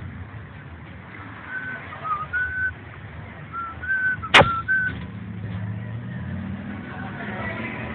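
A person whistling a short tune of brief notes that step up and down, over a steady rumble of street traffic. A single sharp knock cuts in partway through the tune.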